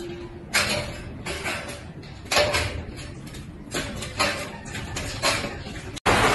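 Short knocks and rattles of steel furring channels and hanger wire being handled and fitted overhead, about seven of them over several seconds. Near the end a louder steady noise cuts in suddenly.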